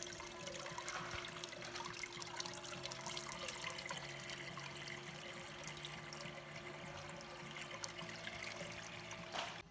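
Water swirling and splashing in a blue bowl gold concentrator as muddy ore slurry is worked in by hand, over a faint steady hum. The sound cuts off abruptly just before the end.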